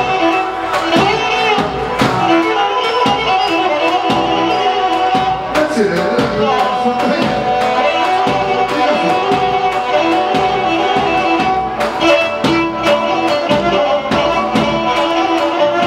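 Live Pontic Greek folk music: a Pontic lyra, a three-string bowed fiddle, plays a dance tune over band accompaniment with a steady beat.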